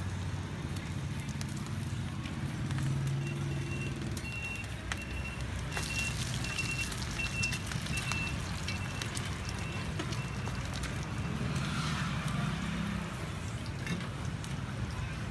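Bột chiên frying and sizzling in oil on a large flat pan, with metal spatulas clinking and scraping on the pan as the cake is cut, turned and lifted. Street traffic and motorbike engines hum underneath, and a high beep repeats about twice a second from about three seconds in to about ten seconds in.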